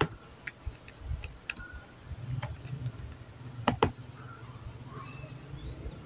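Scattered clicks and snaps of the plastic clips on a laptop's bottom cover as it is pried loose along its edge, with a sharp double snap a little past halfway.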